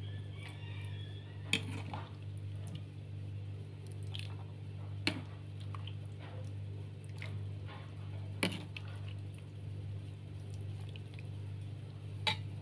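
Jackfruit stew in coconut milk being ladled from the pot into a serving dish: soft wet scooping and pouring, with a short sharp clink of the ladle four times, about every three and a half seconds, over a steady low hum.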